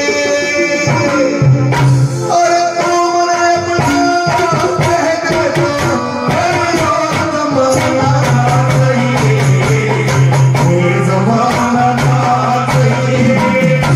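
Live Hindi devotional bhajan music, mostly instrumental: held melody notes over a hand drum and jingling percussion keeping a steady beat.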